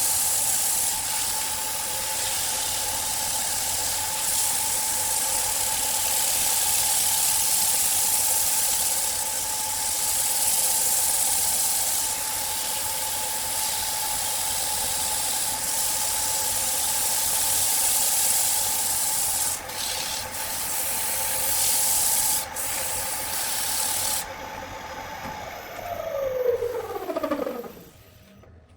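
A wood lathe runs with a steady whine while something rubs against the spinning piece, making a loud hiss. A little over three-quarters of the way in, the rubbing stops. The lathe is then switched off, and its whine falls in pitch as it spins down to a stop near the end.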